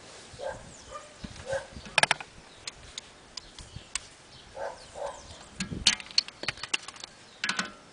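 Metal clinks and clicks of a socket and extension bar on the drive-axle bolt as it is threaded into the rear wheel hub, with a few sharp knocks, the loudest about two and six seconds in. Short pitched calls repeat faintly in the background.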